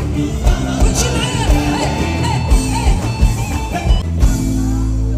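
Live band music with a woman singing into a microphone, over drum kit, bass and electric guitar.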